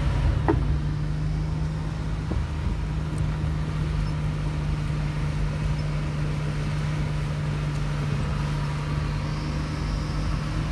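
Bus engine running at a steady speed with a constant low hum over road noise.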